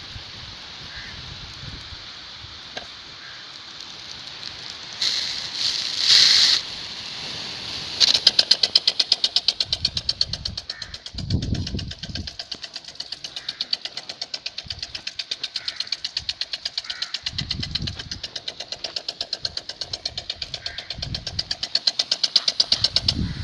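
Irrigation sprinkler in operation: a short hiss of water spray, then from about 8 s a fast, even run of sharp mechanical ticks, several a second.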